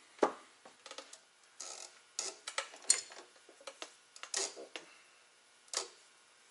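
Scattered light clicks and small metallic clatters of hands handling tools and parts in a truck's engine bay, irregular and spaced out.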